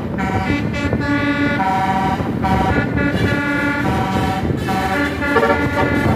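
Indonesian tour bus 'telolet basuri' air horn playing a quick multi-note tune, the notes changing every fraction of a second with short breaks between phrases. A low engine rumble runs underneath.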